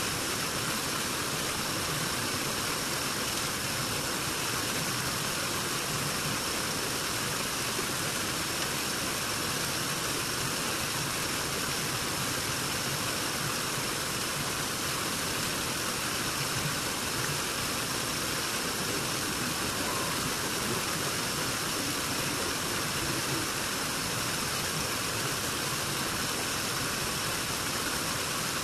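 A steady, unchanging engine-like running noise with a faint high whine.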